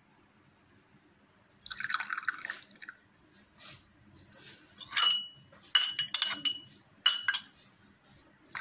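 Liquid splashing into a glass about two seconds in, then several light clinks of glassware with a brief ring between about five and seven and a half seconds in.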